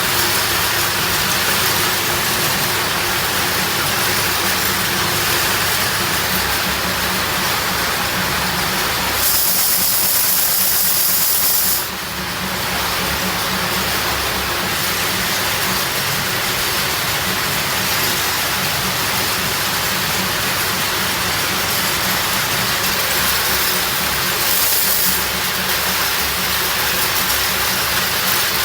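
Factory machinery running with a steady hum and noise. A loud hiss breaks in about a third of the way through and lasts a couple of seconds, and a shorter hiss comes near the end.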